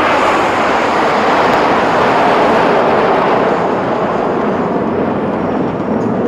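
Formation of nine BAE Hawk Mk 132 jet trainers flying past, each powered by a single Adour turbofan. The jet noise is a loud, steady rush that swells slightly through the middle and eases a little near the end.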